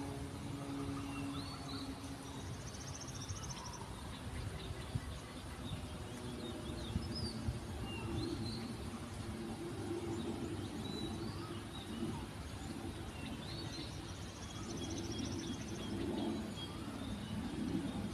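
Scattered short, high chirps of small birds over a steady low rumble of road traffic, with a brief buzzy trill heard twice.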